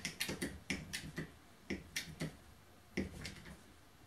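Hydraulic hand crimper being pumped to crimp a lug onto 4/0 welding cable: a run of sharp clicks, quick at first, then spaced further apart, stopping about three seconds in.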